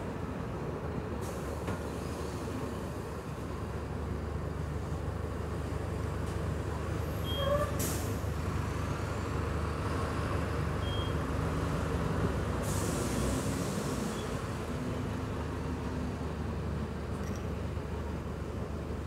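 Interior of a Mercedes-Benz OH1621LE city bus on the move: steady drone of the diesel engine and road rumble. A hiss starts about a second in and comes again about two-thirds of the way through, and there is a sharp click near the middle.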